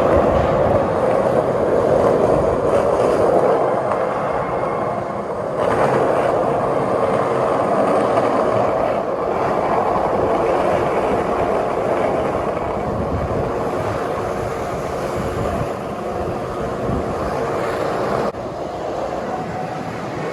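Skate wheels rolling over street pavement: a steady, noisy rumble that shifts abruptly about five and a half seconds in and again near the end.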